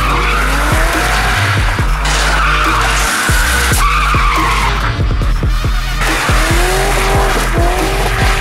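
Drift cars sliding, with engines revving and tyres squealing, mixed with backing music that has a heavy bass and a steady beat.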